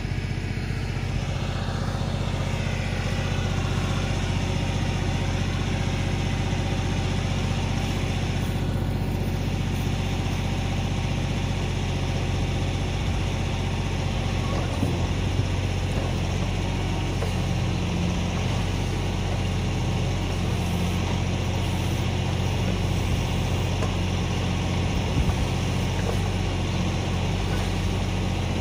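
Kioti DK4510 tractor's diesel engine running steadily, with a couple of brief knocks about halfway through and near the end.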